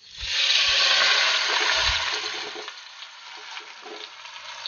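Whole masala-marinated chicken going into hot coconut oil and ghee in a pressure cooker. It sizzles loudly at once and eases off after about two seconds, with a few dull bumps as it is settled.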